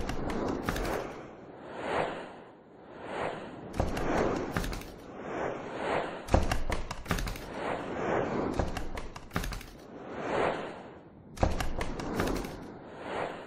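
Electronic soundtrack of repeated swelling whooshes, roughly once a second, mixed with rapid clusters of sharp ticks and low thumps.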